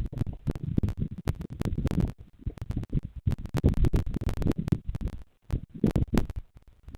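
Wind buffeting the nest camera's microphone: uneven low rumbling gusts that rise and fall every second or so, with many sharp crackles throughout.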